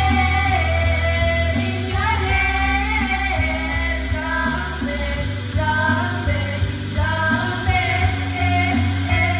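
Women singing karaoke into handheld microphones over a music backing track with a steady bass line.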